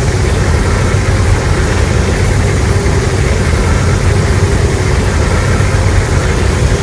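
Loud, steady low rumble with noise spread across the range, engine-like and without breaks.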